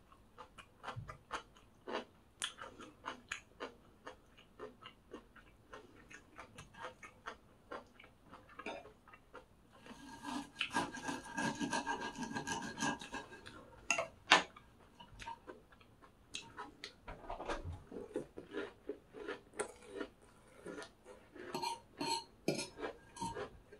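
Close-miked eating: a steady run of crisp crunching and chewing clicks, with a denser stretch of scraping about ten seconds in and one sharp clack shortly after.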